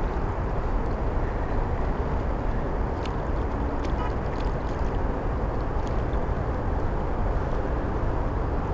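Steady wind rumbling on the camera's microphone, with a few faint clicks.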